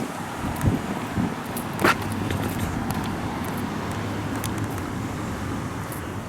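A car driving past on a road, a steady run of tyre and engine noise that eases off slightly near the end, with a sharp click about two seconds in.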